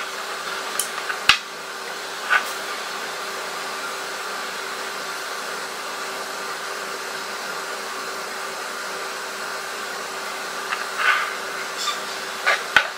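A steady airy hiss of background noise, with a few light clicks and taps from a glass nail-polish bottle and its cap being handled: one sharp click just over a second in, a softer one a second later, and a cluster of small ticks near the end.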